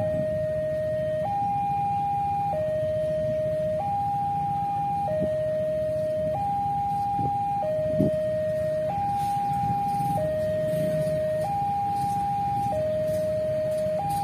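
Railway level-crossing warning alarm sounding: an electronic two-tone signal alternating between a higher and a lower tone, each held for over a second. A steady low rumble runs underneath, and there is a single knock about eight seconds in.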